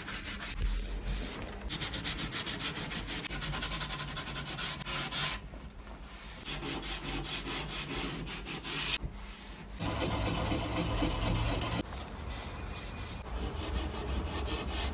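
120-grit sandpaper rubbed by hand over wood in repeated back-and-forth strokes, scraping off old varnish. The strokes break off briefly a little past five seconds and again around nine seconds.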